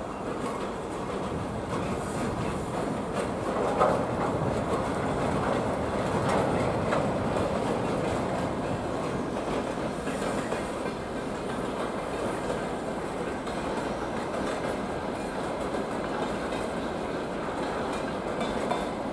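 Freight train wagons, mostly tank cars, rolling past with their wheels running steadily on the rails, and one sharper knock about four seconds in.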